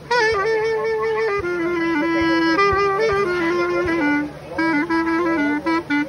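Metal clarinet playing a solo, ornamented melody with pitch slides and bends between notes. It pauses briefly a little past four seconds in, then goes on in short phrases.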